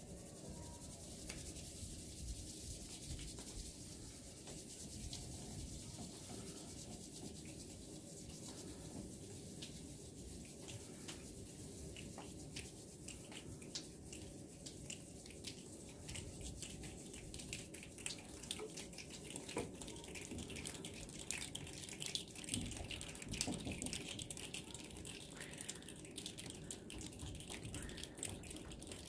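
A group of children doing body percussion: a soft hiss of palms rubbing together, joined by finger snaps that start scattered and grow thicker and denser through the second half.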